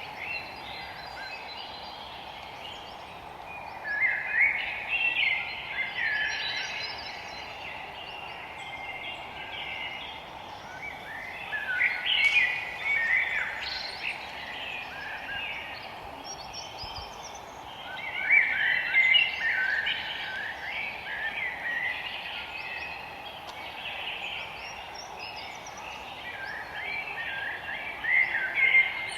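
Birds singing in a forest: bursts of chirping song, each lasting a couple of seconds, come back about every seven seconds, over a steady hiss of background noise.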